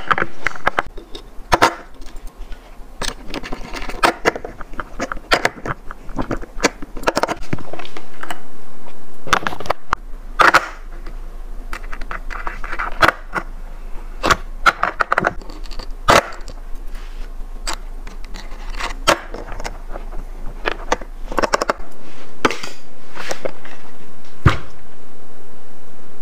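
Hand assembly of a skateboard: irregular sharp clicks and metallic clinks as wheels with bearings and washers go onto the truck axles and the axle nuts are turned with a skate tool's socket.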